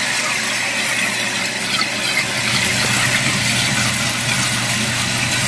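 Toilet tank filling through a newly installed float-cup fill valve: a steady rush and hiss of water running into the tank, with a low hum underneath.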